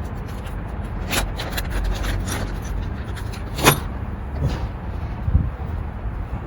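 Scattered clicks and light knocks of carburetor parts and tools being handled, the sharpest knock a little past halfway, over a steady low rumble.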